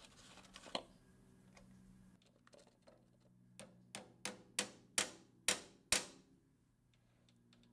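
Brass face of a small brass-and-nylon hammer tapping a brass shear pin into the taper hole of a metal lathe's lead screw coupling: seven quick light metallic taps over about two and a half seconds, starting about three and a half seconds in, the middle ones loudest.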